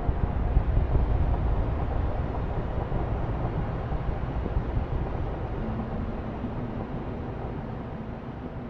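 Ambient electronic drone: a noisy low rumble that swells near the start, then slowly fades, with a steady low tone entering about six seconds in.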